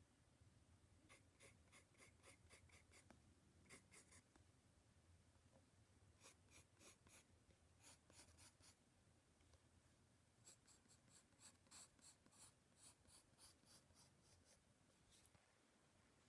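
Graphite sketching pencil stroking across sketch pad paper, faint quick scratches in short runs of several strokes a second, with pauses between runs.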